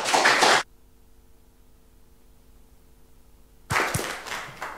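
Audience applause in two short bursts: the first is cut off abruptly after about half a second, and the second starts near the end and fades. A faint steady hum fills the gap between them.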